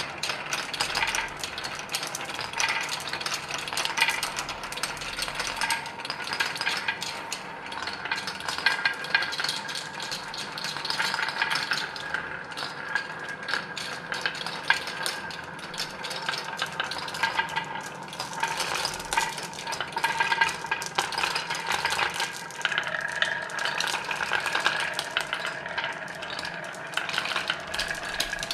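Many marbles rolling and clattering down a marble run, a dense continuous rattle of small clicks with a light ringing.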